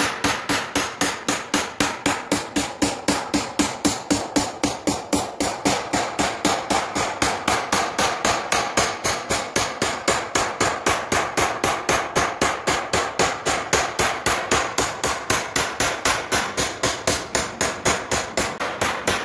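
Small hammer tapping a steel punch into an aluminium sheet, a fast even run of about four to five sharp taps a second, punching a beaded line of dots into the embossed pattern.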